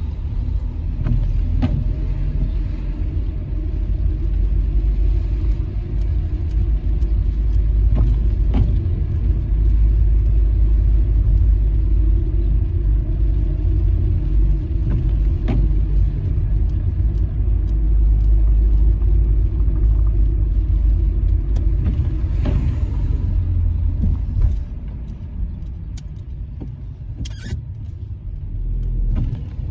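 Car driving on a wet street, heard from inside the cabin: a steady low rumble of engine and tyres with a few light clicks. Near the end it drops quieter for a few seconds, then picks up again.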